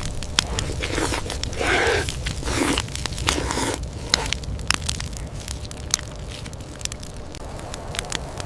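An animal biting and chewing: wet crunching and tearing with many sharp crackles. Several short grunt-like sounds come in the first four seconds.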